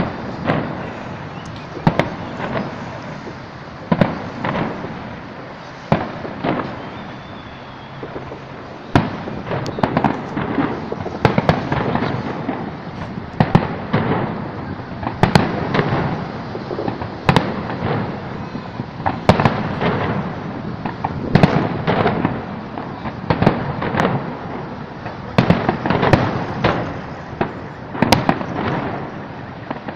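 Aerial fireworks shells bursting in a continuous barrage: sharp bangs and booms one after another with rumbling between them, coming thicker and faster from about ten seconds in.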